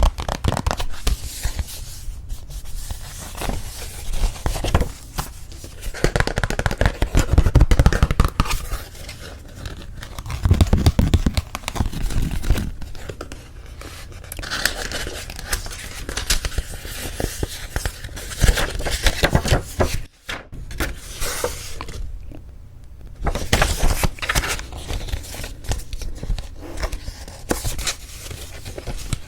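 Paper wedding invitation cards and envelopes being handled and rubbed: continuous rustling, scraping and crinkling of paper and card, with a brief break about two-thirds of the way through.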